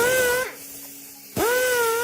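A pneumatic power tool run in two short trigger bursts. Each burst is a hissing whine that spins up quickly to a steady pitch and winds down when released, the second starting about a second and a half in.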